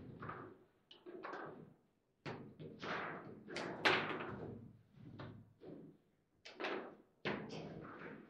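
Table football (foosball) game in play: a run of sharp, irregular knocks and thuds as the rod-mounted players strike the ball and the ball bangs around the table, loudest about four seconds in.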